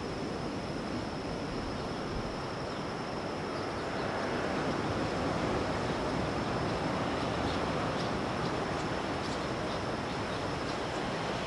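Ocean surf washing onto a beach, a steady rush that swells about four seconds in. A thin steady high tone runs underneath, with faint short high chirps in the second half.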